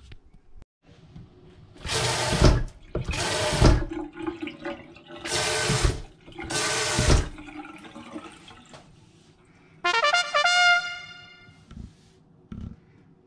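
KVK single-lever washbasin faucet, fitted with a new PZ110S cartridge, turned on and off in a function test: water gushes in four short bursts, each under a second long. About ten seconds in comes a brief, high squealing tone that slides slightly downward.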